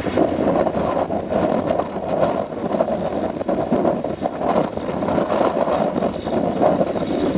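Claas Jaguar 850 self-propelled forage harvester running under load, chopping grass and blowing it through its spout into a trailer, mixed with the engine of the tractor pulling alongside. A steady machine din.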